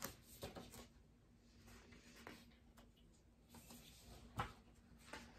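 Near silence with faint paper rustling and a few soft taps and clicks as the pages of a hardcover picture book are handled and turned, the sharpest tap about four seconds in. A faint steady hum runs underneath.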